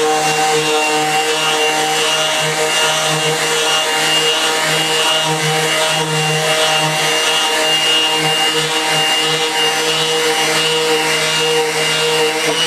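Makita DBO180 18V random orbit sander running at its highest speed against wood, a steady motor hum over the grainy rub of sandpaper, together with the dust extractor it is connected to.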